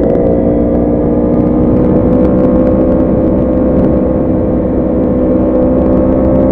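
Yamaha R1 motorcycle engine running at a steady, high-pitched note. The pitch sags slightly mid-way and starts rising again near the end.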